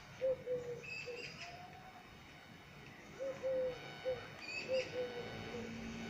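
Eurasian collared dove cooing in three-note phrases, a short note, a long note and a short note, repeated three times. Faint high chirps from another small bird come between the phrases.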